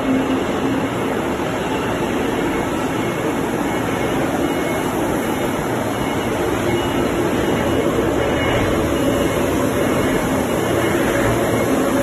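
Steady, loud industrial noise of steel plant machinery running, with no distinct knocks or strokes.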